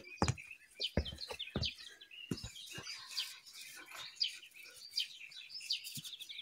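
Small birds chirping and singing, many short high calls overlapping. A few soft low thumps sound in the first couple of seconds.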